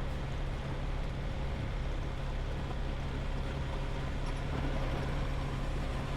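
Semi-truck's diesel engine running steadily, a constant low hum under a steady rush of noise.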